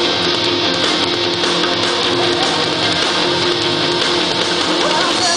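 Background music with guitar, playing steadily.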